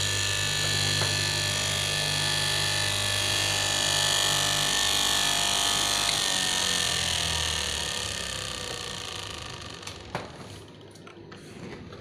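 Electric straight-knife cloth-cutting machine (KM) running steadily. About halfway through it is switched off, and its motor whine falls in pitch and fades as it winds down. A few sharp knocks follow near the end.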